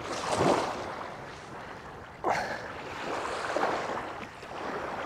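Small sea waves lapping and washing at the water's edge, swelling and fading several times, with a sharper wash about two seconds in.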